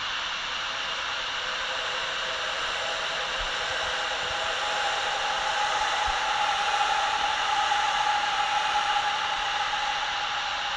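Steady static-like hiss from a horror sound-design drone, with a faint tone inside it that swells in the middle and fades away near the end.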